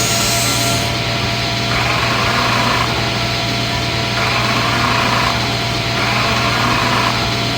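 A small engine running steadily, with three short bursts of hiss about two seconds apart.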